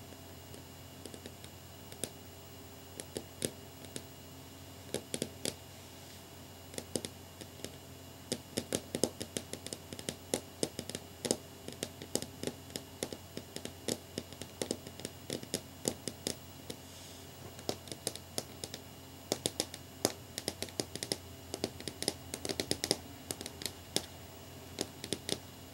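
Long fingernails tapping on a hard flat surface in quick, irregular runs of clicks, like drumming fingers. The taps are sparse for the first few seconds and come thick and fast from about five seconds in.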